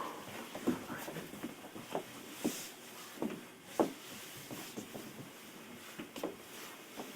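Quiet cabin of a standing Keio 5000-series commuter train, with no running rumble. Faint, irregular short knocks and small sounds come every half second to a second or so.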